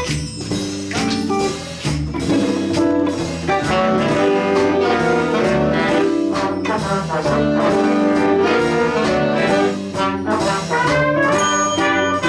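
Big band playing jazz, with trombones, trumpets and saxophones sounding held chords over a steady drum beat.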